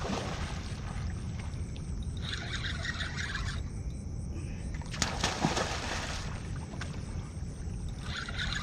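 Fishing reel being cranked in short bursts while a big fish is fought on a heavily bent rod, a rasping whir about two seconds in and again at the end. Under it runs a steady low rumble of wind and water, with a sharp knock or splash about five seconds in.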